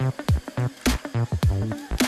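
Electronic background music with a heavy beat: repeated drum hits and sliding, falling bass notes under synth chords.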